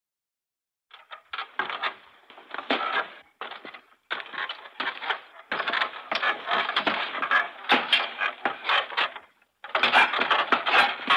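Footsteps on wood: a dense run of creaks, clicks and crackles, starting about a second in and coming in bursts with brief silent gaps between them.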